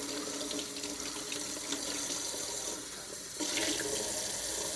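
Tap water running steadily into a sink as a dirty item from a hermit crab cage is rinsed out; the flow eases briefly about three seconds in, then picks up again.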